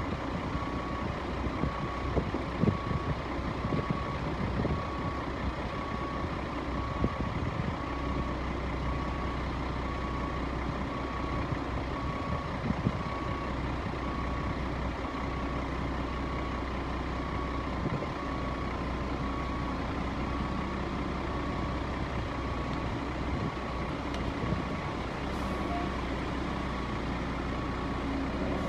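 Front-discharge concrete mixer truck's diesel engine running steadily, with a reversing alarm beeping about once a second and a few knocks in the first half.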